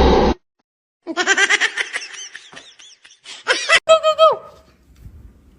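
Laughter in rapid repeated bursts, starting about a second in after a sudden cut, ending with a short held note that falls away.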